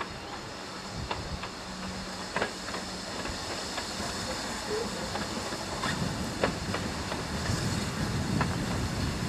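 GWR 5600 class 0-6-2T steam tank locomotive running light, with a steady hiss of steam that grows louder in the second half and several sharp clicks of its wheels over rail joints and pointwork.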